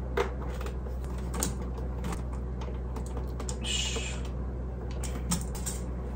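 Light plastic clicks and knocks as a mini projector is handled and fixed onto a tripod's mount, with a brief rustle about four seconds in, over a steady low hum.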